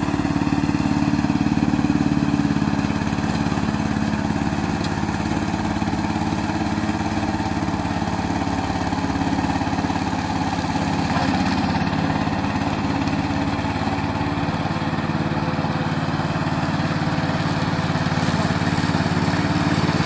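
Gasoline engine of a tracked remote-control mower running steadily as the machine cuts through tall dry grass, its pitch shifting slightly about halfway through.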